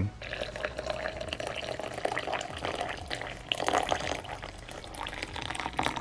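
Hot water pouring steadily into a glass bottle through its stainless steel mesh filter basket.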